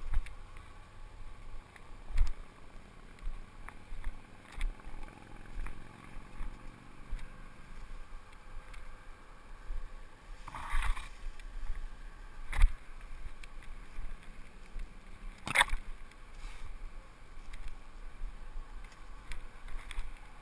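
Leaves, stems and twigs of dense undergrowth rustling and brushing against a person pushing through it, with irregular knocks and thumps of handling and footsteps, a few of them much louder.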